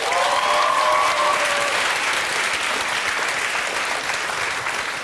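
Studio audience applauding steadily, with one voice calling out in a long held cry over the first second or so.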